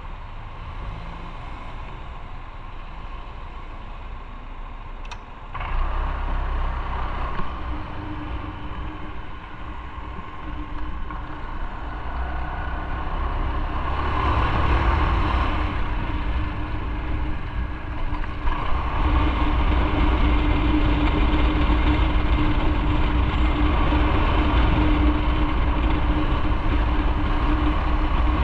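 Motorcycle running on the road, engine and rushing air together: quieter for the first few seconds, it gets suddenly louder about five seconds in and louder again about two-thirds of the way through, settling into a steady drone.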